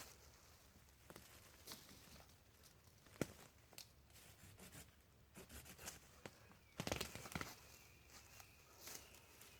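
Faint, scattered crackling and snapping of dry twigs and leaf litter, with a louder cluster of snaps about seven seconds in.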